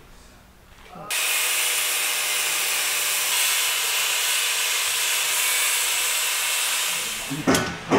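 Angle grinder grinding on a steel rod: a steady, high hissing grind that starts abruptly about a second in and tapers off near the end.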